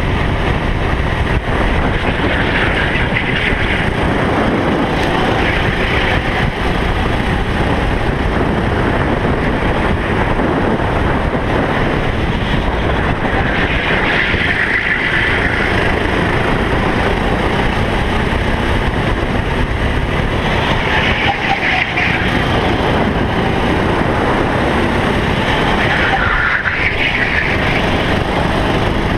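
Racing kart engine running hard, heard from the kart's onboard camera, loud and continuous with its note swelling several times through the lap.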